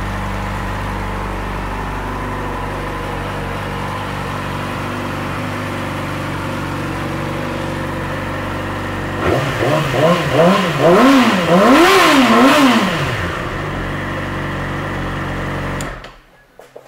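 2012 Yamaha YZF-R6's 599 cc inline-four idling steadily, then revved in a quick series of throttle blips that rise and fall in pitch, settling back to idle. The engine is switched off at the key and cuts out about a second before the end.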